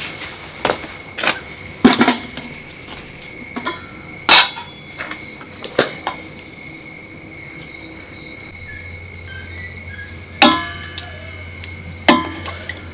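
Irregular clinks and knocks of dishes and kitchen utensils, about a dozen separate strikes, over a steady faint high tone; a low hum comes in about two-thirds of the way through.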